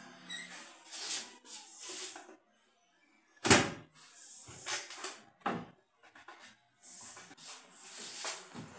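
A mounted print and its laminating film handled at a manual cold-lamination roller machine: bursts of rustling and sliding, with a sharp knock about three and a half seconds in and a smaller one about two seconds later.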